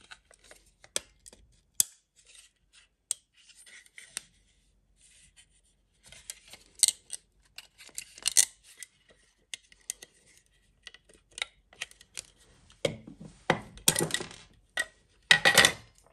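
Plastic clicks, scrapes and rubbing from a powerline Ethernet adapter's white plastic housing being pried open by hand and its circuit board and plug assembly pulled out, with scattered sharp clicks at first and louder, fuller scraping and knocks near the end.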